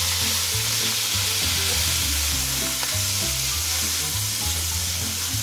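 Raw minced meat sizzling steadily in hot oil in a non-stick wok, stirred and pushed about with a slotted spatula.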